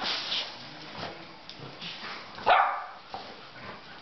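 Dogs play-fighting, an adult and a puppy, with one sharp bark or yip about two and a half seconds in, the loudest sound.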